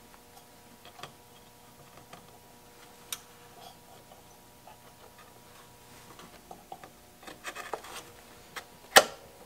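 Scattered small clicks and taps of hands working on an open vacuum-tube radio chassis while a replacement tube is fitted, with one sharp, loud click about nine seconds in. A faint steady tone runs underneath.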